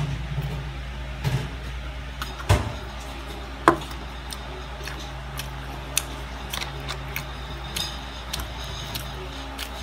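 Plastic fork tapping and scraping on a cardboard food tray while cutting pancake: a dozen or so short, sharp clicks at irregular intervals, two louder ones a few seconds in, over a steady low hum.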